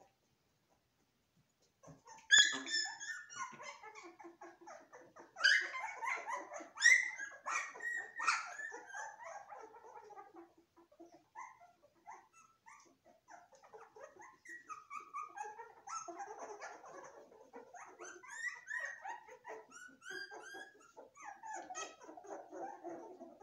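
A litter of newborn puppies whimpering and squealing in many short, high-pitched cries, starting about two seconds in and loudest in a flurry a few seconds later.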